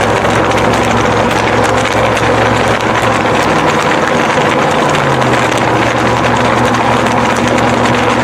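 Ram 1500 Rebel pickup driving at highway speed: steady engine hum under loud road and wind noise, the engine note dropping a little in pitch about five seconds in.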